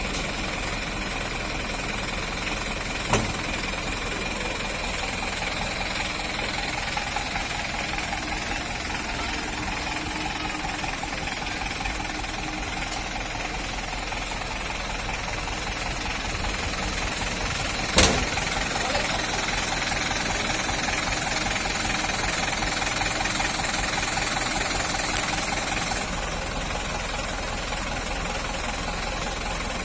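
Mitsubishi Ragasa dump truck's diesel engine running steadily, with a sharp click about three seconds in and a louder one around eighteen seconds.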